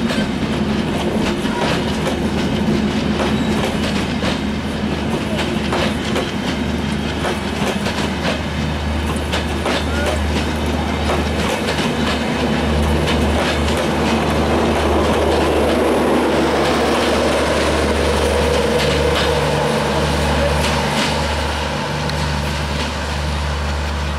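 Bangladesh Railway intercity passenger coaches rolling past on the track, a steady rumble with the wheels clacking over the rail joints.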